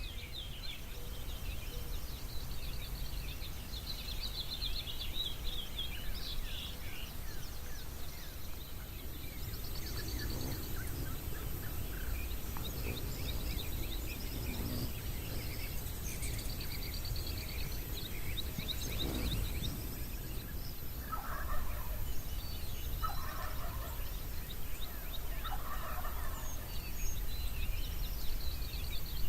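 Wild birds calling: high rapid trills and chirps in the first half, then a run of lower, roughly one-second calls repeating about every two seconds, over a steady low rumble.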